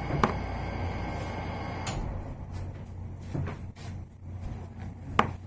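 Air conditioner running with a steady hum that cuts off with a sharp click about two seconds in as it is switched off, the room noise dropping away. A few short clicks and knocks follow, the loudest near the end.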